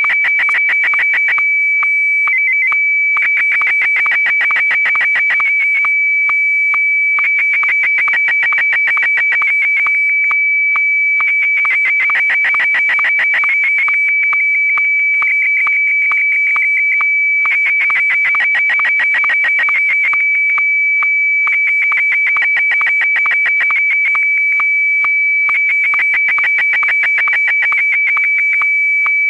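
Electronic music: a loud, steady, piercing high tone is held throughout. Over it, dense rapid clicking textures swell and drop away every few seconds.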